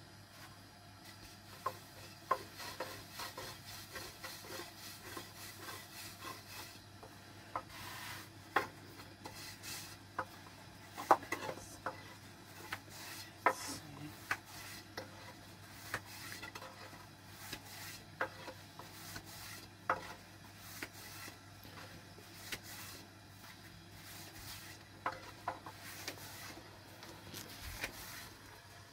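A long, thin wooden rolling pin rolling out flatbread dough on a wooden board: soft rubbing with irregular light wooden clicks and taps as the pin is pressed, turned and set down.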